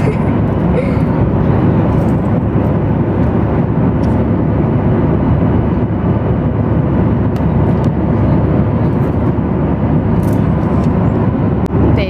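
Steady, loud airliner cabin noise: the even rumble of the jet engines and air rushing past the fuselage, with a few faint clicks.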